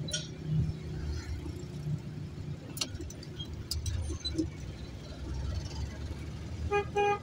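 City street traffic: a steady low rumble of vehicle engines with a few sharp clicks, then two short horn beeps near the end.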